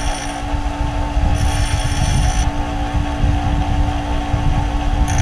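Bench grinder motor running steadily while steel twist drill bits are held against the grinding wheel to sharpen them. A higher grinding hiss comes in for about a second, a second and a half in.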